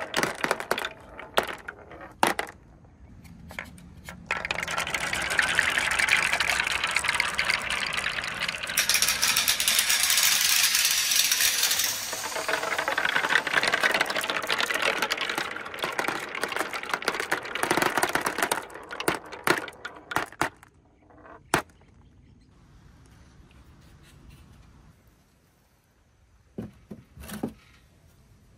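Dozens of marbles rolling down a wooden slope, clicking against small wooden blocks and each other and collecting in a plastic tub. The clatter of clicks builds a few seconds in, stays dense for over ten seconds, then thins to scattered clicks.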